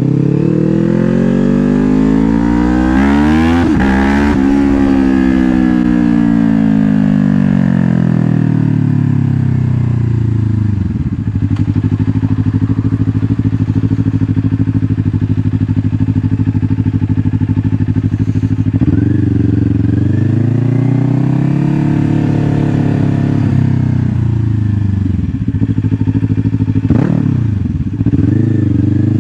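2024 Kawasaki Ninja 500's parallel-twin engine under way, heard through a helmet-mounted mic. It revs up over the first few seconds, then its pitch falls away as the rider eases off, and it holds steady for several seconds. It then rises and falls again and climbs once more near the end.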